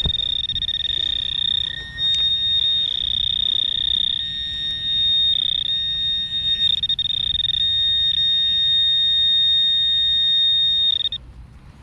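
Garrett Pro-Pointer pinpointer sounding a continuous high-pitched alarm tone as it is held on a metal target in the dug soil. The tone wavers slightly in level and cuts off about eleven seconds in.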